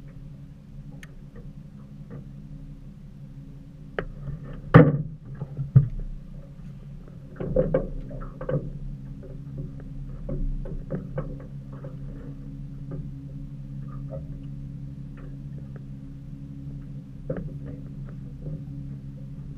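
A steady low motor hum, with scattered knocks and clunks in the aluminium boat. The loudest knock comes about five seconds in, and a cluster follows around eight seconds.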